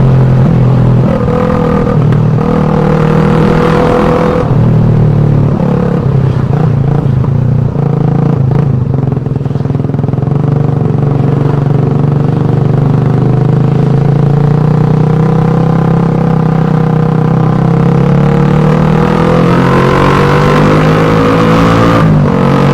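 Suzuki Satria FU 150's single-cylinder four-stroke engine running through its exhaust at a steady pitch, with some throttle changes in the first several seconds. The pitch climbs over the last few seconds, then breaks briefly near the end.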